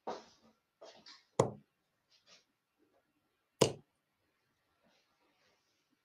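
Steel-tip darts striking a bristle dartboard: two sharp thuds about two seconds apart.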